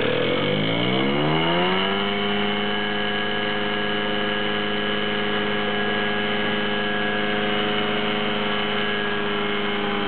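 Electric motor spinning up with a rising whine over about two seconds, then running on at a steady high speed with an even, multi-toned hum.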